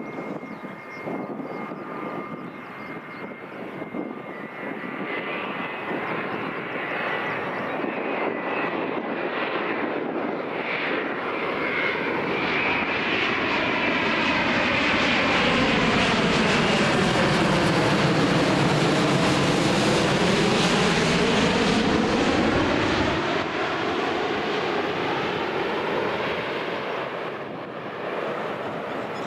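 Boeing 787-9 airliner's jet engines passing overhead: a steady rushing noise that builds, is loudest a little past the middle with a swirling, phasing sweep as it goes over, then eases off. A thin high whine sounds in the first several seconds as it approaches.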